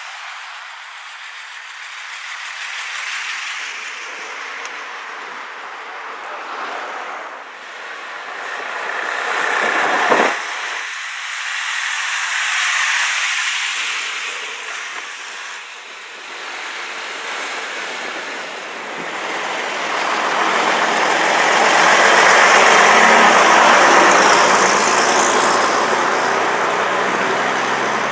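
Road traffic with vintage London double-deck buses driving past, among them a green 1950 AEC Regent III RT. There is a brief whoosh about ten seconds in, and a bus engine passes close and is loudest about two-thirds of the way through.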